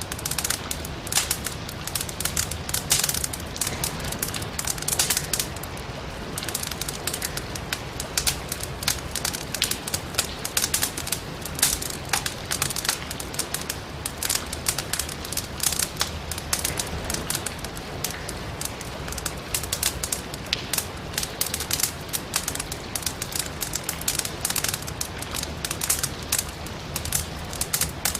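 Firewood crackling and popping in a fireplace: many irregular sharp snaps over a steady hiss of rain and a low rumble of the fire.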